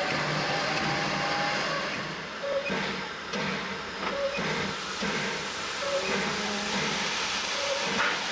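LNER J15 0-6-0 steam locomotive No. 7564 hissing steam, with steam blowing from its open cylinder drain cocks near the end.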